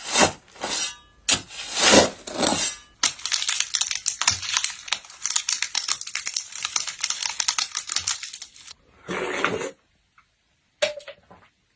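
Foley props being crumpled and crackled for a sound effect: a few short rustling swells, then a dense run of rapid crackles lasting several seconds, a brief noisy rush and a few small clicks.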